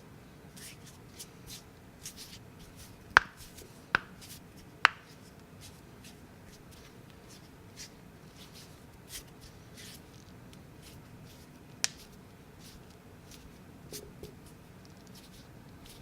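Knuckles cracking: three sharp pops in quick succession a few seconds in and another near the end, with fainter small clicks and hand rustling between.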